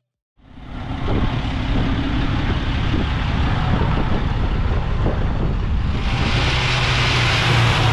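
Engines of old trucks running as they drive slowly past. A steady engine hum grows louder near the end.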